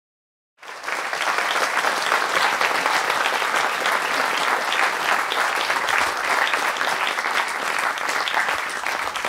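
Audience applause: dense, steady clapping from a hall full of people, beginning abruptly about half a second in.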